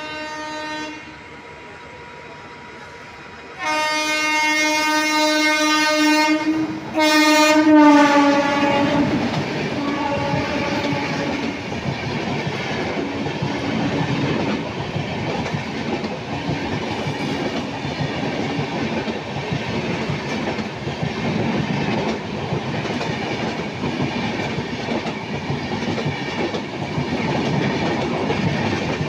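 Rajdhani Express locomotive horn: a brief sound at the start, a loud blast of about three seconds, then another blast that drops in pitch as the locomotive passes close by. Its coaches then rush past on the adjacent track at speed, with steady rolling noise and wheel clatter.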